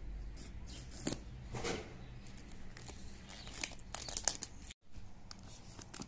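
Clear plastic shrink-wrap on a small cardboard box being slit with a blade and torn, crinkling in short irregular bursts.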